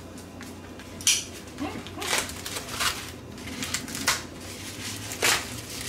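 A knife cutting through packing tape and cardboard wrapping, in several short scratchy strokes.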